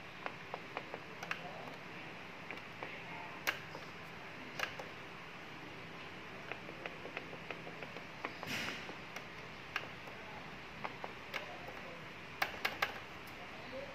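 Scattered light clicks and taps of hands handling the plastic parts of a Sharp AR-6020D copier, with a short rustle about eight and a half seconds in and a quick run of clicks near the end.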